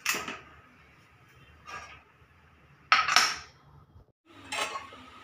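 A few sharp metal clinks and knocks from an aluminium pressure cooker as its lid is locked and the whistle weight is set on the vent pipe; the loudest clank comes about three seconds in.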